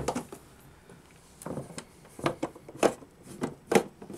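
Hand screwdriver turning a screw out of a metal wall-pack light housing: a string of short, irregular clicks and scrapes.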